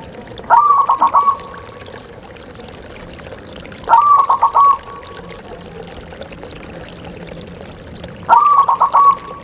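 Zebra dove (perkutut) cooing: three songs about four seconds apart, each a short rising note followed by a quick run of four or five clipped coos, under a steady background hiss.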